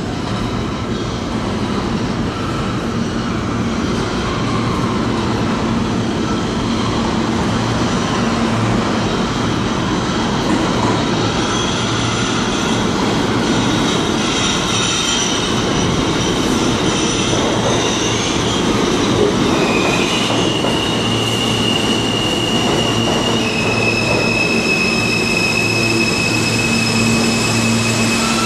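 R160 subway train pulling into an underground station and slowing along the platform, with a steady heavy rumble of steel wheels on rail. In the last third, high thin squealing tones come in and step in pitch as it slows.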